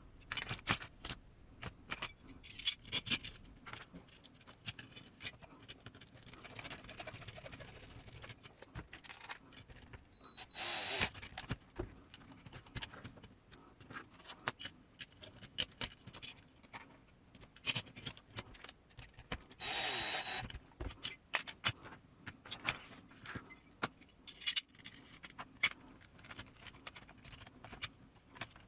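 Small metal parts, screws and tools clicking and clinking as they are handled during assembly, with a cordless electric screwdriver whirring twice for about a second each, near the middle and two-thirds of the way through.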